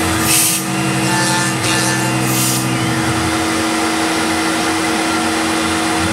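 CNC milling machine running, its end mill cutting a pine block: a steady whine with a lower hum that comes and goes as the cutter works, a few short hisses in the first half, and a whine that slides in pitch briefly in the middle and again at the end.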